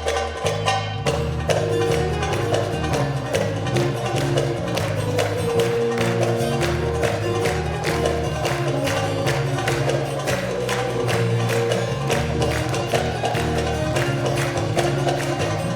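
Turkish folk music ensemble playing a brisk, steady rhythm, with percussion and plucked strings over a moving bass line.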